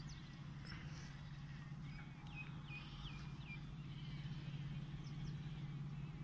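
A bird gives a quick run of four short, falling chirps about two seconds in, and a couple of fainter chirps later, over a steady low hum.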